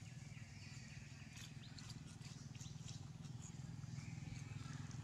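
Faint forest ambience: a steady low hum with scattered soft rustles and clicks, as of dry leaves being disturbed, and a few faint high chirps.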